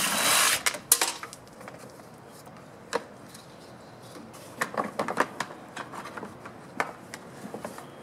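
A cordless impact driver runs briefly, backing a screw out of the plastic engine cover on a Honda mower engine. Then come scattered clicks and a run of plastic clatter about halfway through as the cover and its parts are handled and lifted off.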